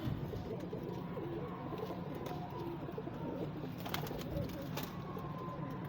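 Domestic pigeons cooing, several overlapping in a steady low murmur, with a couple of short clicks about four and five seconds in.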